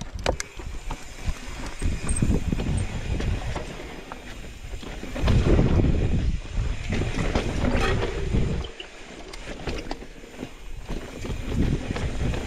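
Mountain bike riding on a loose dirt trail: wind rushing over the microphone and tyres rolling on dirt and rock, swelling and easing in surges, with scattered clicks and rattles from the bike.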